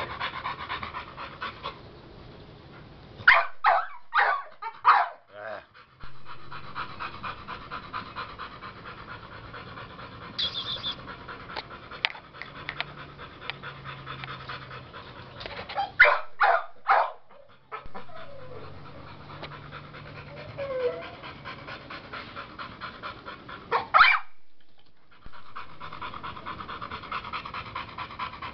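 American Bully dog panting rapidly and steadily. A few brief loud bumps break in three times, a few seconds in, about halfway through and near the end.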